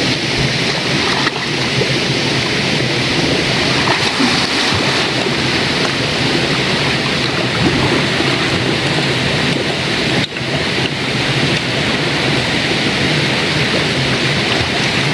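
River water rushing steadily and loudly, a continuous even hiss of flowing water, with brief dips about a second in and about ten seconds in.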